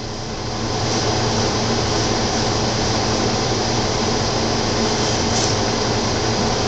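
Steady fan-like mechanical hum and hiss, with a low drone underneath; it grows a little louder about a second in.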